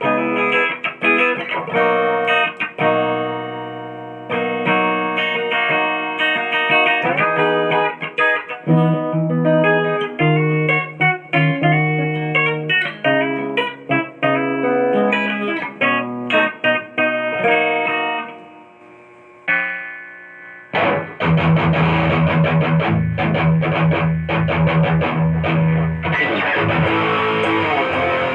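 Vantage electric guitar with humbucker-single-single (HSS) pickups, played through an amp. It rings out picked single notes and chords on a clean tone. After a short quiet dip about twenty seconds in, it switches to a distorted tone with fast picking over a held low note.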